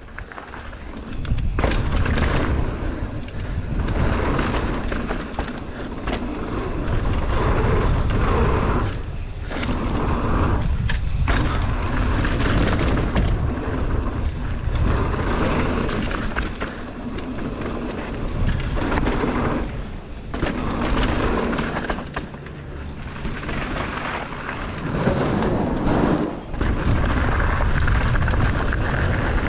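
Mountain bike descending a bike-park trail at speed: wind buffeting the microphone and tyres running over dirt, with the bike rattling over bumps. It eases off briefly a few times, then picks up again.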